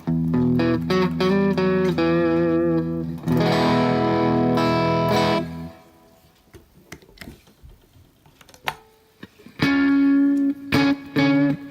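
Electric guitar played through an overdrive pedal: sustained low notes under a short lead phrase, dropping to a few soft picked notes about halfway, then loud chords coming back in near the end.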